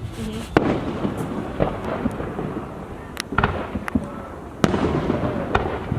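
Distant fireworks display: a steady run of sharp booms and pops over a continuous low rumble and crackle, the loudest bangs about half a second in, near the middle and past four and a half seconds.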